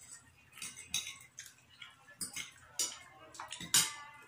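Eating sounds at a table: irregular light clicks and crunches from fried chicken being pulled apart and chewed, with plates and cutlery, the loudest click a little before the end.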